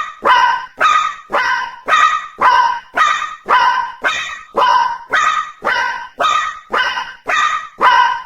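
Japanese railroad crossing warning bell ringing in a steady rhythm of about two strokes a second, each stroke fading before the next. It stops at the very end.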